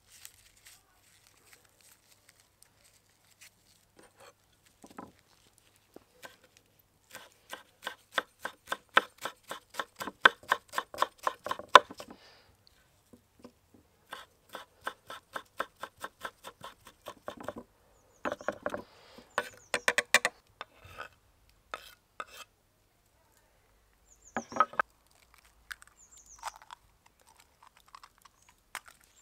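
Kitchen knife chopping wild garlic and Jack-by-the-hedge leaves on a wooden chopping board: two runs of rapid, even knocks of the blade on the wood, the first lasting about five seconds and the second about three. A few scattered knocks follow near the end.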